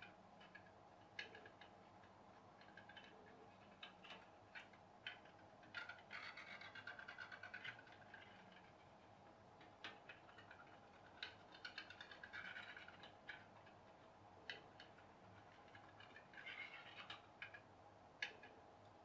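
Faint, irregular ticking with a few short spells of crackling from a home-made pop-pop steam boat, a coiled aluminium-tube boiler heated by a tea light, running in water. This boat runs quietly rather than popping loudly.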